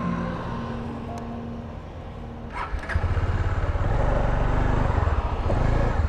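Motorcycle engine running quietly, then growing louder and pulsing from about three seconds in as the bike pulls away.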